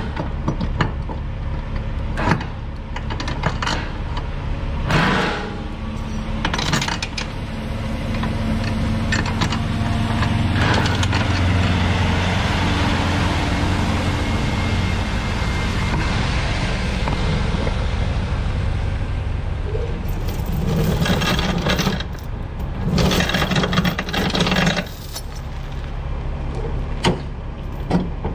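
Steel load-securement chains rattling and clanking against steel beams as they are handled and hooked on a flatbed trailer, with several sharp clanks and a long burst of rattling near the end. A heavy truck's engine passes by in the middle, swelling and fading.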